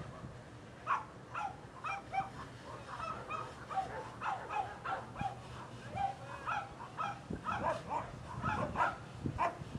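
A dog barking repeatedly in short, sharp barks, about two a second, starting about a second in.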